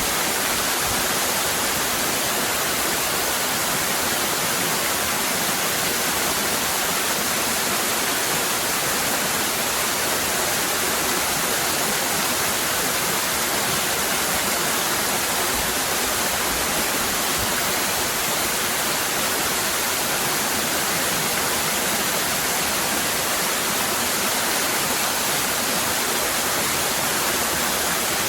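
Waterfall cascading: a steady, unbroken rush of falling water, strongest in the hiss, with no pauses or separate splashes.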